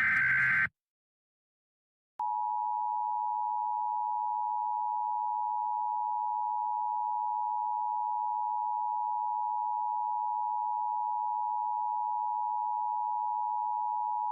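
Emergency Alert System broadcast: the last of three short SAME header data bursts ends just under a second in. After about a second and a half of silence, a long steady attention tone near 1 kHz begins and holds unbroken, announcing the spoken alert to follow.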